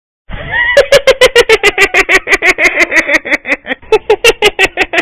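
Comic sound effect dubbed over an edited meme clip: after a brief silence, a fast, even string of short squeaky pitched blips, each starting with a click, about six or seven a second.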